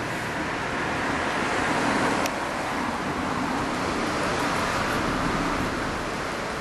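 Kawasaki Z750S inline-four engine running through a NOJIMA racing exhaust, swelling to a brief peak about two seconds in before dropping back sharply to a steady run.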